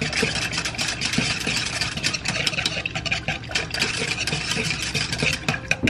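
Sweet and sour sauce being mixed in the kitchen right after red food colouring goes in: a steady noisy rush with rapid clicking, stopping suddenly right at the end.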